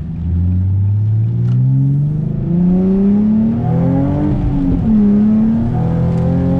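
A car engine accelerating hard: its pitch climbs steadily for about four seconds, drops back as it changes gear around five seconds in, then climbs again.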